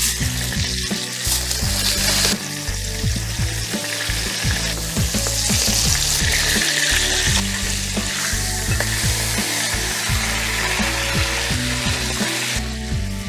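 Chicken sizzling as it fries in a pan, stirred with a utensil that clicks and scrapes against the pan now and then.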